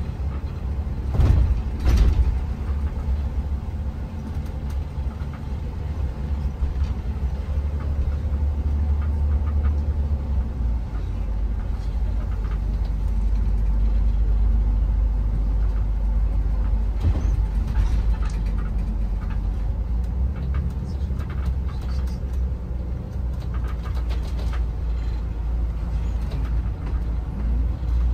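Shuttle bus under way: a steady low rumble of engine and road. Two sharp knocks about a second and two seconds in are the loudest part, and a few lighter knocks come later.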